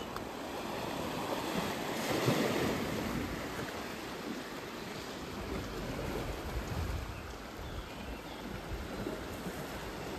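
Sea waves washing onto a rocky shore, swelling about two seconds in, with wind gusting on the microphone in the second half.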